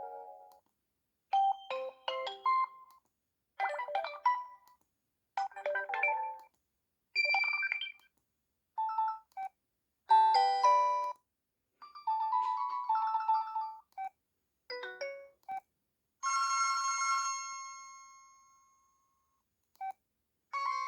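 ZTE A431 phone playing its preloaded short alert tones one after another: about a dozen brief electronic jingles, each a second or less, separated by short silences. Near the end one longer bell-like chime rings out and fades over about three seconds before another tone begins.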